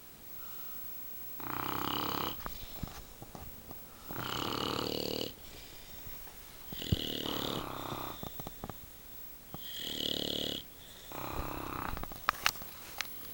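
Loud snoring: about five rasping snores, one every two and a half to three seconds, with a few sharp clicks near the end.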